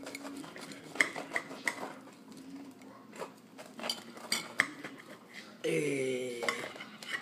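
Steel knife and fork clinking and scraping against a ceramic platter while cutting through the crust of a baked calzone, a series of sharp clinks. Near the end a brief voice-like pitched sound lasts about a second.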